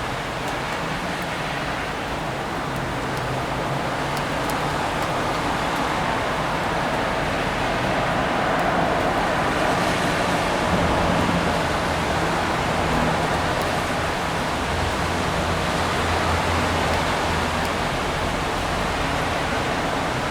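Steady city rain ambience: an even hiss of rain and wet street noise over a low traffic rumble, swelling a little around the middle as vehicle noise grows, then easing back.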